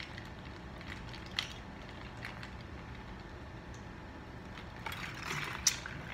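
Drinking from a plastic soda bottle: faint scattered clicks of swallowing, then a short crackling of the plastic bottle and a sharp click just before the end as it comes away from the mouth.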